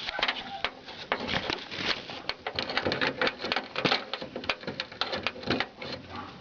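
Irregular clicking, tapping and rattling of the lock rod and metal and plastic parts being handled inside an opened car door, as the rod is worked back toward its plastic clip.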